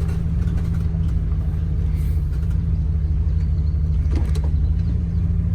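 Motorhome engine running steadily, a low hum that holds one constant pitch.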